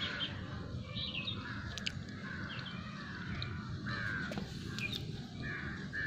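Crows cawing over and over in harsh, repeated calls, with short high bird chirps among them.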